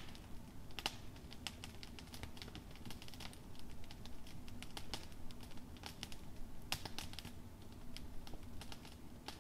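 Wood campfire crackling, with irregular sharp snaps and pops over a steady low background.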